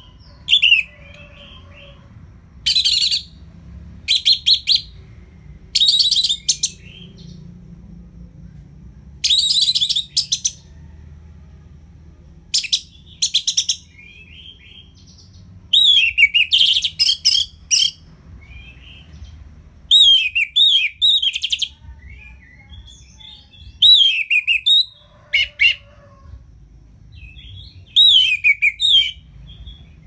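Orange-headed thrush (anis merah) singing in full song: loud phrases of rapid chattering notes and down-slurred whistles, each about a second long, repeated every one to three seconds with softer notes in the pauses. A faint low hum runs underneath.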